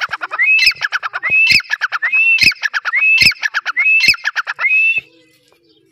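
Grey francolin (teetar) calling loudly: a rising whistled note followed by a quick rattling run of notes, repeated about six times at a steady pace, stopping about five seconds in.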